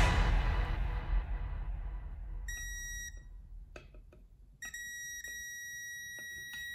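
Klein Tools NCVT-5A non-contact voltage tester beeping with a high steady tone: a short beep about two and a half seconds in, then a continuous beep of about two seconds as its tip sits at the outlet's live (phase) slot, signalling that it senses AC voltage. A few faint clicks fall between the beeps, and background music fades out over the first two seconds.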